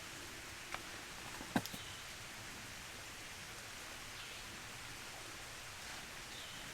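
Faint, steady outdoor hiss with two light clicks in the first two seconds.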